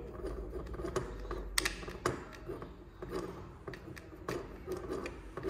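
Screwdriver turning two screws back into a plastic housing: irregular small clicks and ticks of the tool and the plastic parts, kept hand-tight so the screws don't strip the plastic threads.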